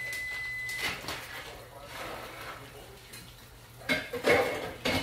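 Dishes and pots clattering, with the loudest clatter near the end. A short, steady high-pitched beep opens it.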